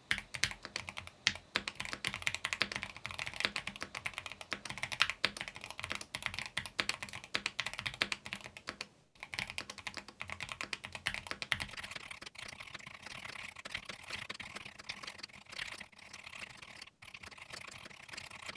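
Fast, continuous typing on a Keychron Q5 HE metal-bodied keyboard with Gateron double-rail magnetic Hall-effect switches, a dense run of key clicks with a couple of brief pauses.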